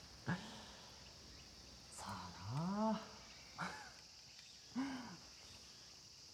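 A man's short wordless voice sounds: a drawn-out hum rising and then falling in pitch about two seconds in, with brief murmurs before and after it. Under them runs a steady high chirring of insects.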